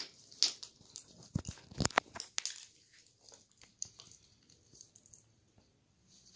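Slime being squeezed and worked by hand, giving a run of short wet clicks and crackles, thickest in the first three seconds and then thinning to a few faint ones.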